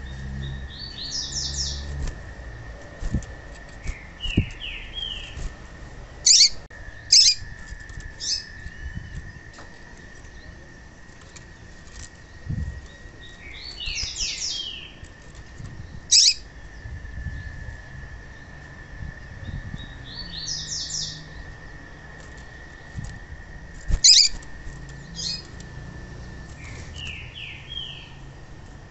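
Female papa-capim (double-collared seedeater) calling: quick clusters of short, high chirping notes, repeated every few seconds with a few sharp single notes between, over a steady faint high tone. It is the female call that breeders play to get a male singing.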